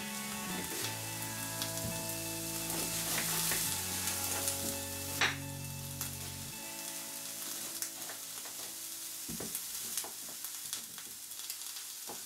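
Chopped onions sizzling steadily in oil in a frying pan, with a few sharp clicks of a knife on a wooden cutting board as a celery root is peeled, the loudest about five seconds in.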